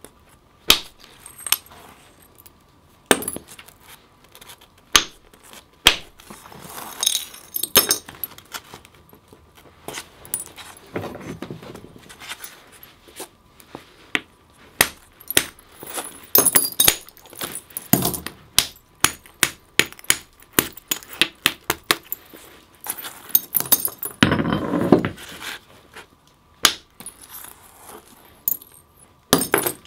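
Flint knapping: an antler hammer striking the edge of a flint tranchet adze blank, giving sharp, irregular clicks as flakes come off while the underside is flattened. Between the strikes come several short stretches of scraping as the edge is rubbed with a stone.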